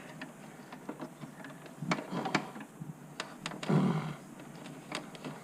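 Hand tools clicking and knocking on a car battery hold-down as it is tightened: a handful of sharp metallic clicks, with one heavier clunk a little past the middle.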